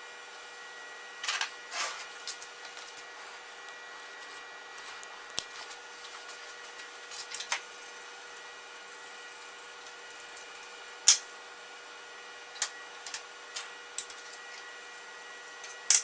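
Scattered clinks, knocks and short scrapes of hand tools and small metal parts being handled, over a steady electrical hum. The sharpest knock comes about two-thirds of the way through, and another comes at the very end.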